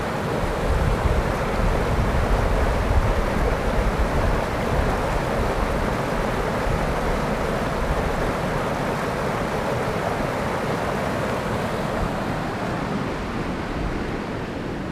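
Rushing mountain river tumbling over rocks in rapids: a steady, full rush of white water with a low, uneven rumble beneath it. Both ease off near the end.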